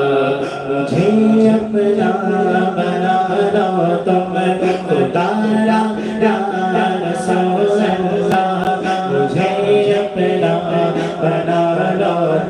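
A man's voice chanting a devotional kalam into a microphone in long held, sliding notes, with no instruments, over a steady low held tone.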